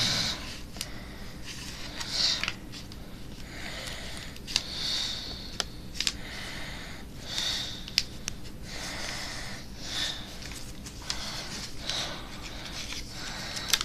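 Paper being handled and creased by hand, with scattered sharp crinkles and taps. Soft breathing through the nose swells every two seconds or so.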